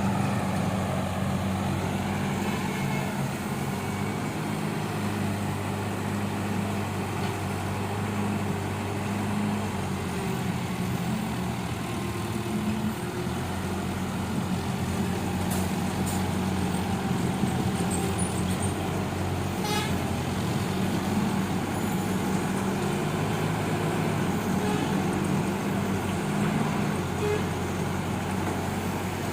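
Diesel engine of a working excavator running steadily under load, its note shifting a little as the machine works.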